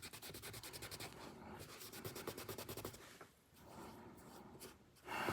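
Faint, rapid back-and-forth scratching of a brush scrubbing the knife's metal. The strokes come fast at first, then turn slower and more uneven, pause briefly about three seconds in, and resume.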